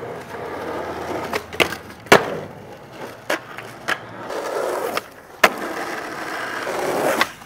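Skateboard wheels rolling over rough asphalt, broken by several sharp clacks as the board strikes the pavement on tricks and landings. The loudest clack comes about two seconds in.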